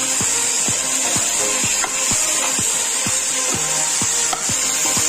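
Sizzling and a spatula scraping as the soya manchurian is stir-fried in the pan, over background music with a steady beat of about two strokes a second. The sizzle fades out just after the end.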